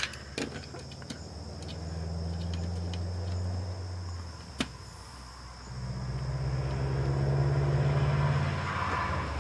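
A low droning hum that swells twice, the second time louder, with a few sharp clicks from handling the plastic body and mechanism of a small portable cassette player.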